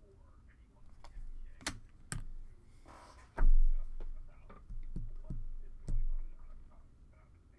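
Desk handling noise: a few scattered sharp clicks and knocks, with one heavy low thump about three and a half seconds in.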